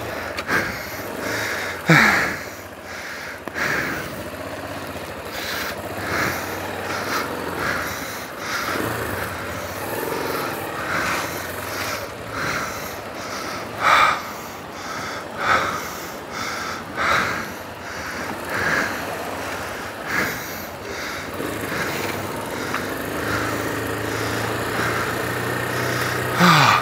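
Motorcycle engine running at low speed, with short irregular sounds over it.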